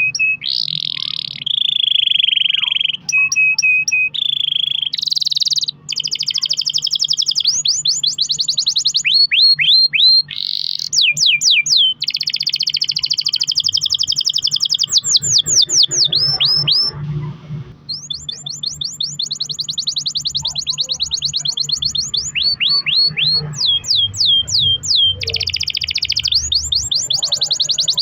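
Domestic canary singing a long, continuous song of fast rolling trills made of rapid repeated sweeping notes, with a few held whistled tones. It breaks off briefly about two-thirds of the way through, then carries on.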